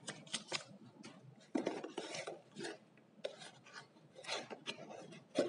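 Paper rustling and crinkling as a sheet of receipt paper is handled, mixed with hands rubbing and scraping against a cardboard shipping box, in irregular bursts with a louder scrape near the end.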